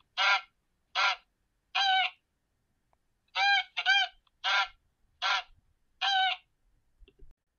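Goose honking: a series of short, nasal honks, three spaced out, then after a pause of about a second and a half five more in a quicker run.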